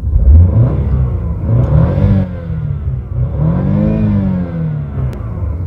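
A BMW car engine being revved in Park: a few short blips of the throttle, then a longer rev that climbs to about 6,000 rpm around four seconds in and falls back.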